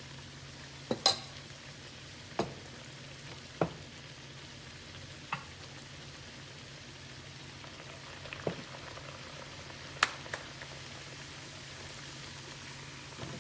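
Guyanese bakes frying in hot oil in a pan, a steady sizzle, with several sharp clicks or knocks scattered through it. The oil is running too hot, as the cook judges it.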